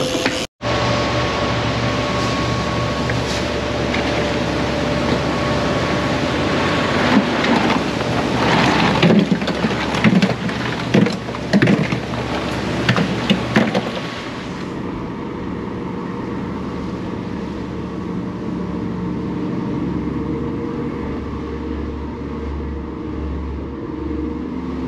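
Boat engine running steadily under way, with wind and water noise. A run of sharp knocks comes between about 8 and 14 seconds in, after which the sound turns quieter and duller, leaving a steady low engine hum.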